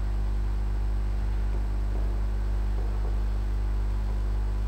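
Steady low electrical mains hum, a constant drone with its overtones, running under the recording with no speech.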